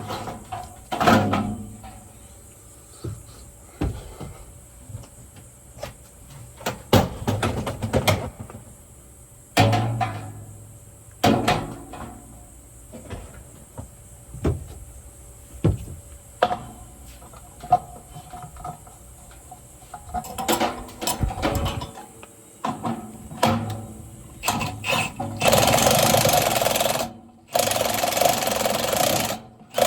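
Tools and metal blower parts knocking and clattering as the blower assembly is worked on, then two longer bursts of a cordless power tool near the end.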